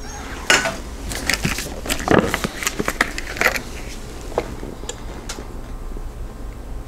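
Scattered light clicks and taps of a plastic measuring cup and a bottle of vegetable oil being handled on a kitchen counter.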